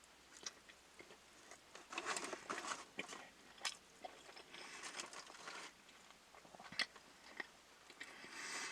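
A person chewing and biting fast food close to the microphone: irregular wet mouth clicks and short crunchy bursts, with one sharper click near the end.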